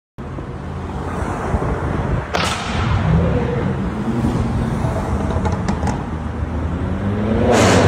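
Several BMW M4 coupés with their twin-turbo straight-six engines and exhausts, together with other cars, driving through a road tunnel. The engine note rises in pitch about three seconds in. There is a sharp bang about two and a half seconds in, and the sound builds to its loudest near the end.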